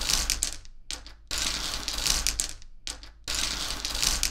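Small rocks shuffled around in a decorative plate, grinding and clattering against each other and the plate. Three rushes of about a second or more each, with short pauses between them.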